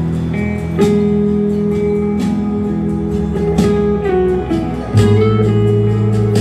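Guitar music with plucked and slide-guitar notes over a steady bass line, played back through hi-fi loudspeakers and picked up by a phone's microphone.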